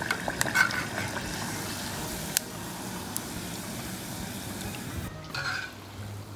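Breaded potato croquettes deep-frying in hot oil: a steady sizzle and bubbling, with a few sharp ticks. About five seconds in the sizzle drops away and grows quieter.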